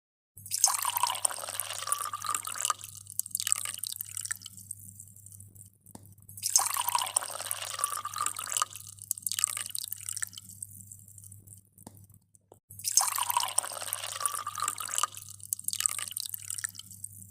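Splashing, pouring water, the same sound repeated three times. Each time a rush of about two and a half seconds is followed by a shorter splash and a pause. A steady low hum runs underneath.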